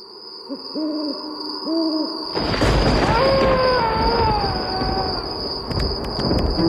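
Cartoon night sound effects: an owl hoots three times. About two seconds in, a loud rumble starts, with a long wavering cry gliding slowly downward over it. A thin, steady high whine runs underneath.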